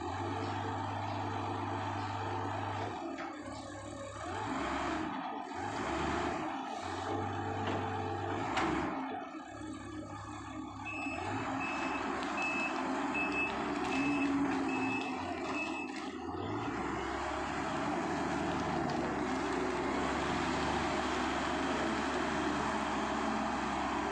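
Komatsu WA120 wheel loader's diesel engine working, its note swelling and easing as it pushes sludge. About halfway through, its reversing alarm beeps steadily for several seconds, about one and a half beeps a second.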